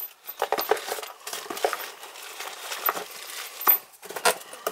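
A gas valve and metal pipe fittings being handled: a run of irregular clinks and knocks, with one sharp knock the loudest, a little before the end.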